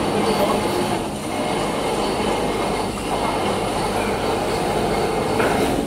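Overhead hook trolley and hoist of a hanger-type shot blasting machine running on its steel rail, a loud metallic rolling rumble with some squeal. It stops abruptly near the end.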